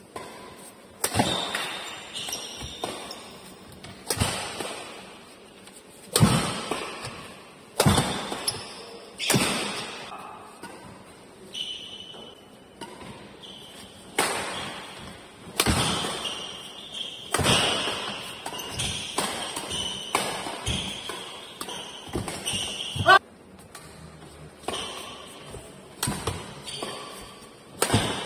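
Badminton rackets striking a shuttlecock in a doubles rally, sharp hits coming every second or two, each echoing through a large hall, with lighter footfalls and short squeaks from shoes on the court between them.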